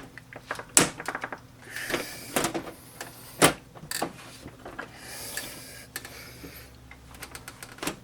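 Desktop computer case being handled and fitted back together: scattered clicks and knocks, two sharper ones a little under a second in and about three and a half seconds in, with a couple of short scraping slides.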